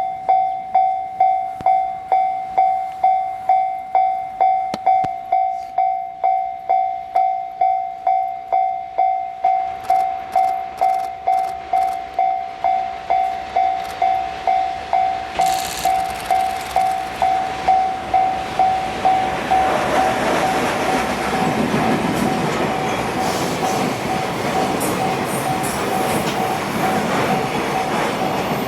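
Japanese railway level-crossing warning bell ringing, one clanging tone struck about one and a half times a second. About twenty seconds in, a freight train arrives and the steady rumble of its wheels on the rails rises over the bell, which keeps ringing underneath.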